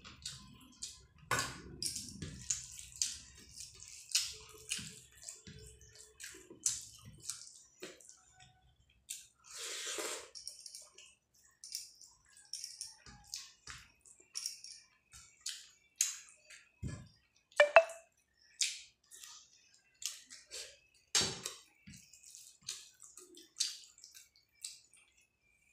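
Fingers squishing and mixing rice with chicken curry gravy on a plate, making many short, irregular wet clicks and smacks. Gravy is poured from a steel bowl onto the rice at the start. One sharper click comes about two-thirds of the way in.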